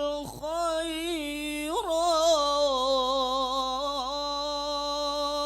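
Quran recitation by a single unaccompanied voice with no added effects, drawing out the phrase 'fastabiqu al-khayrat' in one long melodic line. After a brief break near the start, the voice holds on with small ornamental turns in pitch.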